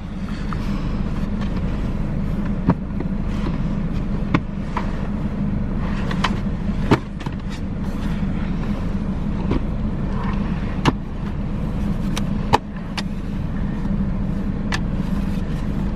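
Cybex Cloud T infant car seat being handled and fitted in a car's back seat: scattered sharp plastic clicks and knocks at irregular moments, over a steady low hum in the car.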